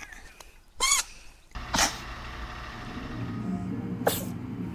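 A pet sneezing: three short, sharp sneezes, about a second in, again near two seconds, and once more near the end.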